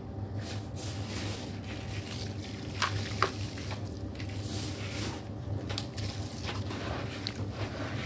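Red sand crumbling into a bowl of water, with soft fizzing and crackling as the dry clumps soak and a few sharp drips about three seconds in. A steady low hum runs underneath.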